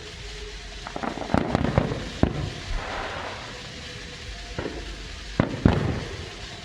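Distant fireworks going off: a quick run of sharp bangs about a second in, a crackle of smaller reports, then two loud booms near the end, each followed by a low rumble.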